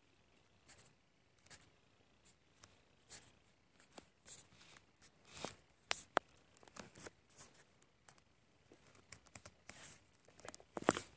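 Faint irregular rustling and clicking from a hand-held phone being handled and adjusted, fingers brushing against it, with a sharp click about six seconds in and a louder cluster of rustles near the end.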